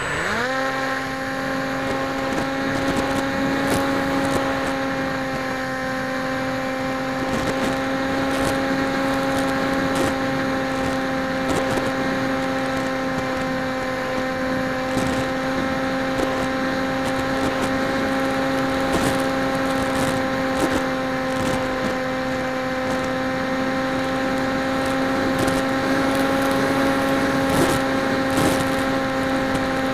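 Electric motor and propeller of a PopWing foam flying wing spinning up to full throttle in the first half-second, then a steady whine for the rest of the flight, picked up by the onboard FPV camera. A few faint clicks sound over it.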